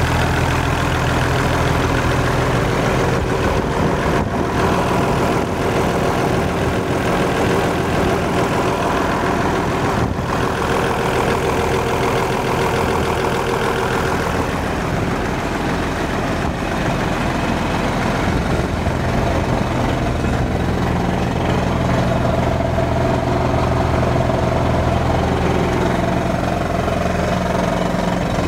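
Engine of a drilling rig and its air compressor running steadily, its note shifting about halfway through.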